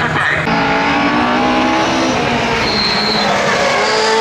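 Rallycross race car engines running hard at full throttle, their pitch jumping up and down as they accelerate, over tyre and gravel noise. A second car's engine note rises in near the end as it approaches.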